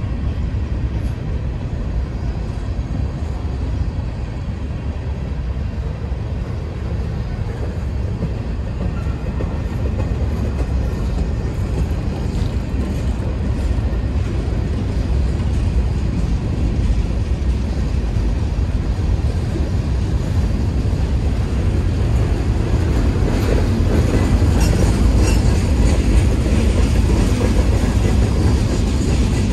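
Freight cars of a mixed freight train rolling past close by: a steady rumble of steel wheels on the rails, growing somewhat louder over the last few seconds.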